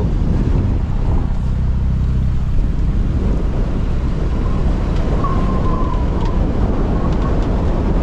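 Strong gusty wind buffeting the microphone over the steady low drone of the sailboat's inboard engine, with a faint short whistle a little past the middle.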